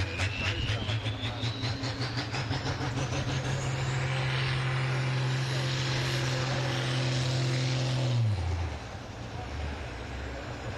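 Diesel farm tractor pulling a weighted sled at full throttle, its engine held at steady high revs while a high whine climbs steadily. About eight seconds in the revs drop away sharply to a lower rumble.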